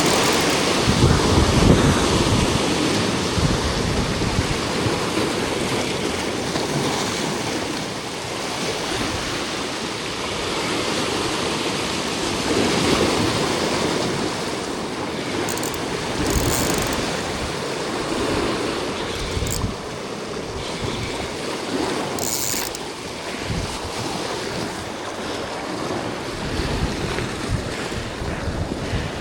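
Sea waves washing against the shore rocks, with gusts of wind buffeting the microphone and a few brief high hisses in the middle.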